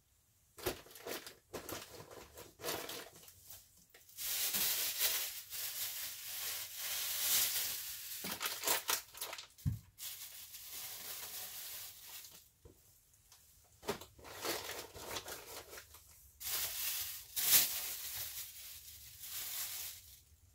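Plastic bags crinkling and rustling as clothes are handled and packed into a cardboard box. The rustling comes in long stretches about four seconds in and again about sixteen seconds in, with scattered light knocks between and one dull thump near the middle.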